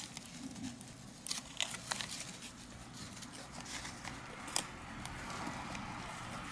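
Faint rustling of crumpled tissue and newspaper bedding as hamsters scurry over it, with a few short sharp clicks.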